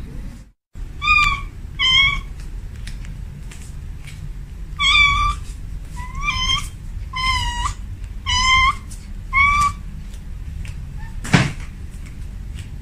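Kitten mewing: seven short, high-pitched mews, some rising slightly at the end. Near the end there is a single sharp knock.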